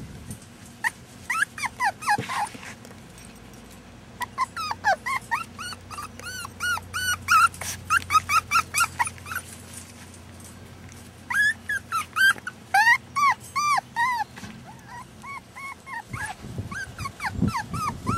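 Rat Terrier puppies a few weeks old whining and yipping in runs of short, high-pitched cries, with quieter gaps between the runs.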